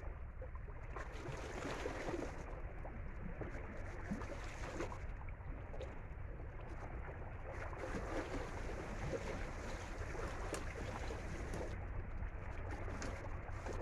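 Steady outdoor noise of river water washing against jetty rocks, with a low rumble underneath and no distinct events.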